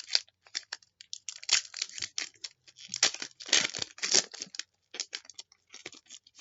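A trading-card pack wrapper being torn open and crinkled in the hands, in irregular ripping and rustling bursts with a few longer tears in the middle.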